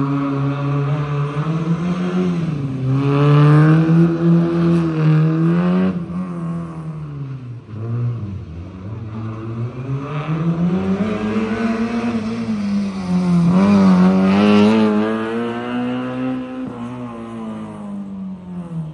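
Rally car engine, its note rising and falling several times as it accelerates, lifts off and accelerates again. It is loudest twice, about three seconds in and again about fourteen seconds in.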